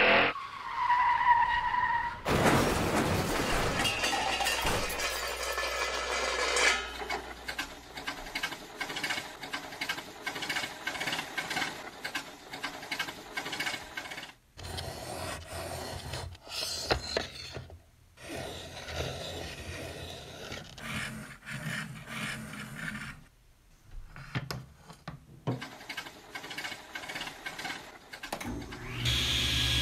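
Steel scraping on diamond sharpening plates as a chisel in a honing guide is honed: fast runs of short rasping strokes with brief pauses between them.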